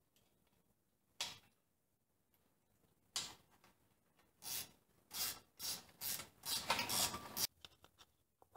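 Metal scraping and rattling of a rusty ATV muffler and its mounting hardware being worked into place and bolted on: two short scrapes, then a quicker run of them from about halfway through.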